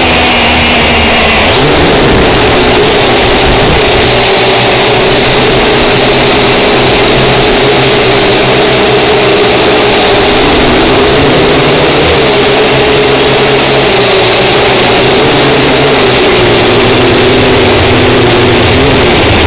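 Small drone's electric motors and propellers whining loudly and without a break, heard close up from the drone itself, the pitch drifting up and down as it manoeuvres.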